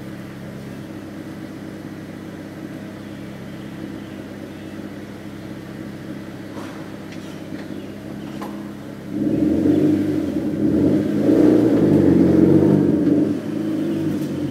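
Mazda Miata engine idling steadily, then pulling harder about nine seconds in as the car moves off from a stop with the clutch engaged. A few faint clicks sound just before it moves off.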